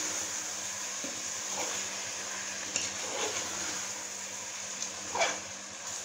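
A steel ladle stirring thick, simmering chicken masala in a steel pressure cooker pot, with a few short scrapes against the pot over a steady low hiss.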